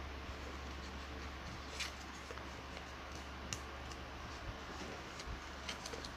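Origami paper being folded and creased by hand: a few short crinkles and taps of the paper, the sharpest about three and a half seconds in, over a steady low hum.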